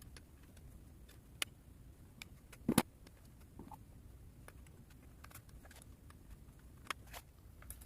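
Faint, scattered small clicks of a micro screwdriver turning a loosened screw out of a plastic cassette tape shell, with a sharper double click a little under three seconds in.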